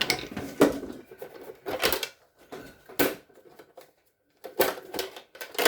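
Small metal parts, likely loose screws, clinking and clattering as they are handled and sorted by hand: about five separate sharp clatters, roughly a second apart.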